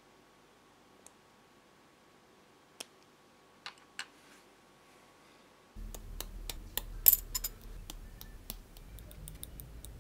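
Plastic model-kit parts giving a few sharp clicks as they are pressed together. About six seconds in, a quick run of plastic clicks and rattles starts as hard plastic sprue frames are handled, with a low rumble underneath; the loudest click comes a little after seven seconds.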